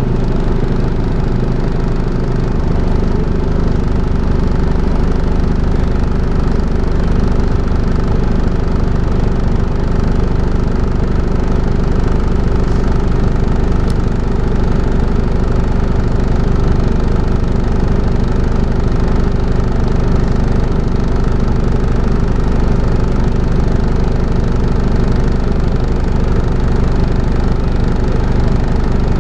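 Volvo B5LH hybrid double-decker bus's four-cylinder diesel running steadily with a constant droning, vacuum-cleaner-like 'hoovering' note. A single faint click comes about halfway through.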